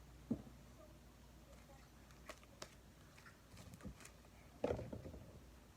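Bead-filled slime being handled and squished by hand, giving a few soft, scattered clicks and pops, with one near the start and a small cluster near the end.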